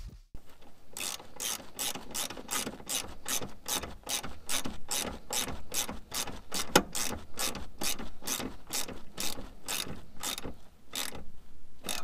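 Socket ratchet turning a bolt, its pawl clicking steadily at about four clicks a second, with a short pause near the end.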